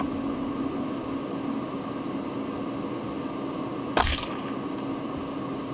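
A single shot from a Marlin Glenfield Model 60 semi-automatic .22 LR rifle, a sharp crack about four seconds in. Under it runs the steady hum of a truck's heater fan.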